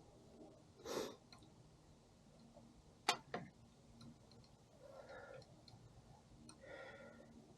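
Faint clicks and taps of small parts and tools being handled on a workbench, with one sharp click about three seconds in.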